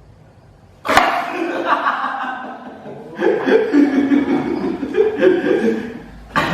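Loud human laughter that breaks out suddenly about a second in, carries on in bursts, and starts again suddenly near the end.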